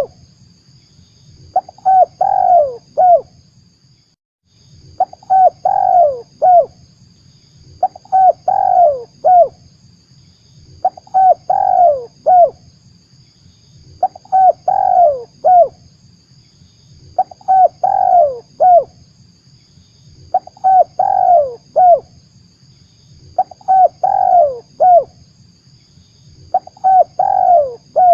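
Spotted dove (tekukur) cooing, a lure call. The same short phrase of several cooing notes, each dropping in pitch, repeats evenly about every three seconds.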